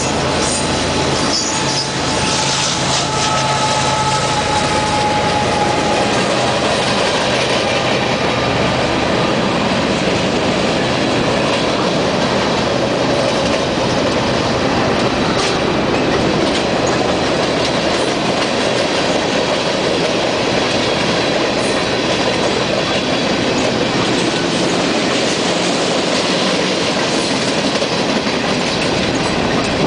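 A freight train's cars rolling past at close range: autoracks, then covered hoppers and tank cars, their wheels giving a steady, loud rumble and clatter over the rails. A thin wheel squeal rides on top for the first several seconds and fades out.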